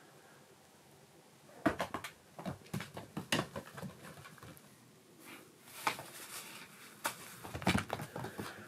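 Kittens scampering and pouncing on tatami mats: an irregular run of soft thumps and pattering taps that starts about a second and a half in.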